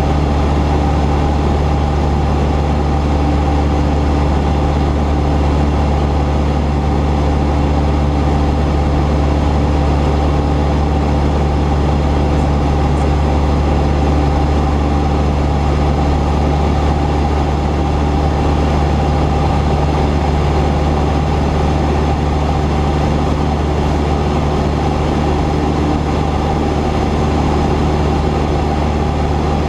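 Cessna 172's single piston engine and propeller running at a steady speed: a constant drone of several low tones that holds its pitch throughout.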